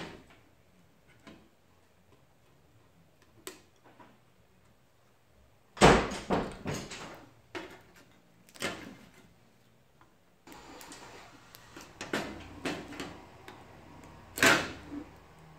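Scattered knocks and clicks from a circuit board and its sheet-metal housing being handled on a workbench while a connector is desoldered. The loudest knock comes near the end, and a faint steady hum starts about two-thirds of the way in.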